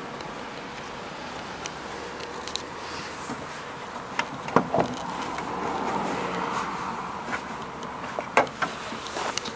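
Steady outdoor hum with a few sharp clicks and knocks, a pair about four and a half seconds in and more near the end.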